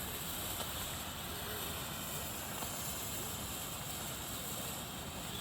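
Steady hissing of a multi-coloured smoke firework novelty as it burns and pours out smoke.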